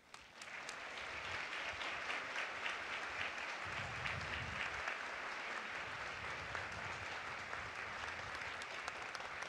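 Large crowd applauding, rising within the first second and then holding steady.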